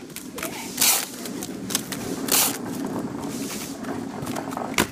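Clear plastic wrapping crinkling as a stack of fireworks is packed by hand: two short, loud rasping bursts about a second and a half apart, over a low background murmur.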